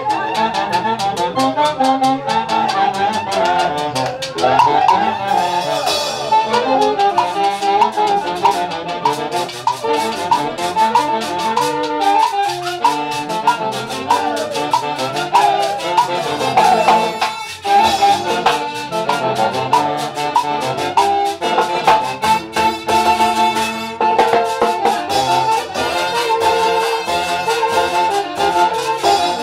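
A Peruvian folk orchestra (orquesta) playing festive dance music, led by trumpets and other brass over a steady beat.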